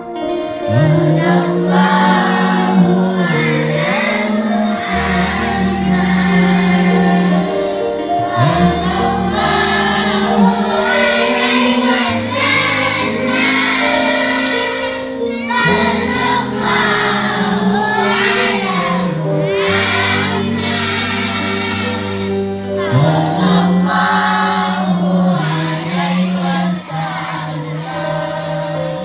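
A choir singing shalawat, Islamic devotional praise of the Prophet, with instrumental backing of long held bass notes.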